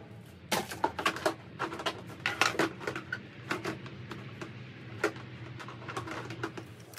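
Plastic body panels on a small quad being handled and fitted, giving quick irregular clicks and knocks as the fenders snap and rattle against the frame.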